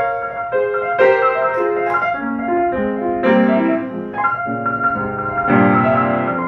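Upright piano being played: a melody over changing chords, with heavier struck chords about a second in, at about three seconds, and near the end.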